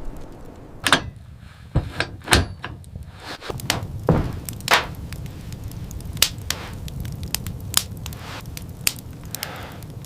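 A series of about a dozen irregular knocks and thuds over a steady low rumble, the heaviest ones in the first few seconds.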